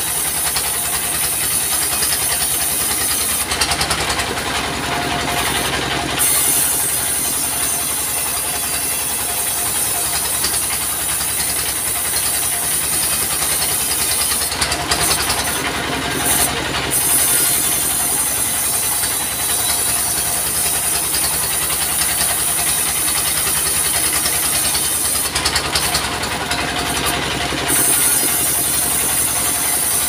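Mobile bandsaw sawmill driven by a diesel engine, running steadily while a log is fed through the band blade. The sound grows louder and noisier three times, about 4, 15 and 26 seconds in.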